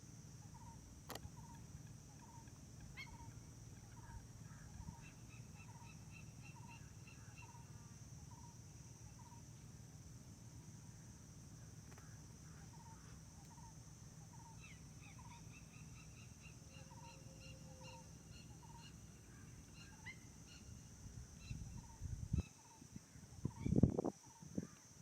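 Wild birds calling: one repeats a short, fairly low note steadily, about two a second, while another gives higher trilling phrases in two spells, over a steady high insect-like hiss. Near the end a few loud low thumps break in.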